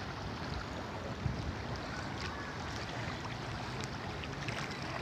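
Steady outdoor riverside noise: river water flowing, with wind buffeting the microphone and a few faint clicks.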